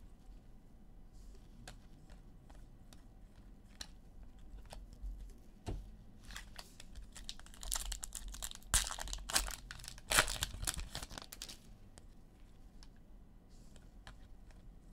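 Trading card pack wrapper crinkling and tearing as the cards are handled, with short clicks throughout; the loudest stretch of crinkling comes about eight to eleven seconds in.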